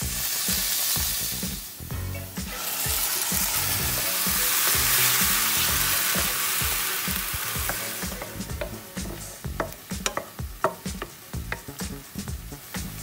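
Chopped onion and tomato sizzling in hot oil in a frying pan, loudest through the middle. In the last few seconds the sizzle thins and a wooden spatula scrapes and clicks against the pan as the mixture is stirred.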